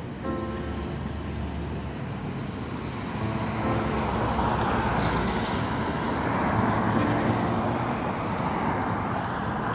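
Road traffic noise, with a vehicle passing that swells and fades over a few seconds.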